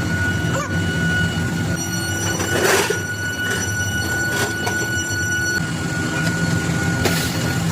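Metal-cutting machine tool running steadily, with a low hum and a constant high whine. Short harsh bursts of cutting noise come about three seconds in and again near the end.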